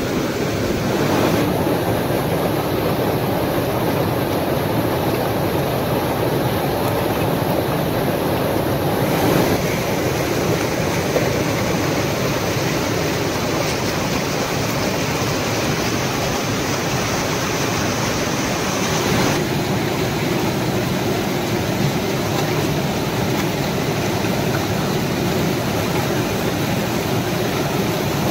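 Monsoon-swollen waterfall cascading over rock ledges into a foaming pool: a loud, steady rush of water, its tone shifting slightly about 9 and 19 seconds in.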